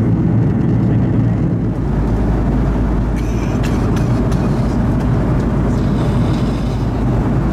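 Steady loud jet-airliner cabin noise inside an Airbus A330-200, the drone of engines and airflow, with a few light clicks around the middle.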